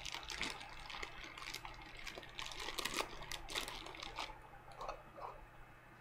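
Small objects being handled: irregular light clicks and rustles, with a denser cluster in the middle.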